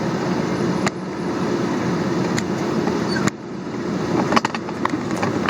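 Cab of a 26-foot box moving truck on the move: steady engine and road rumble with a few sharp knocks. The noise drops suddenly about three seconds in, then builds again.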